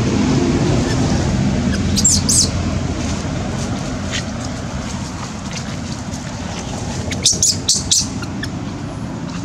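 Birds chirping: two short high chirps about two seconds in and a quick run of four or five near the end, over a steady low rumble.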